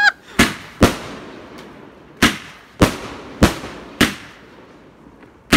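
A series of firework bangs: about seven sharp reports, spaced roughly half a second to a second and a half apart, each trailing off briefly.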